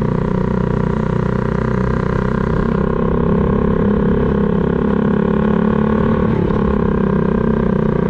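Motorbike engine running steadily at cruising speed, heard from on the bike, with wind rumbling on the microphone.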